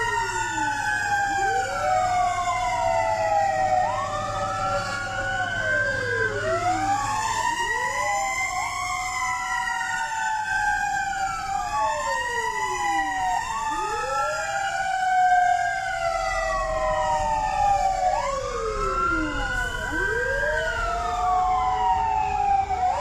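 Several fire truck sirens wailing at once, out of step with each other. Each one rises quickly and then falls slowly over a couple of seconds, so the wails keep crossing.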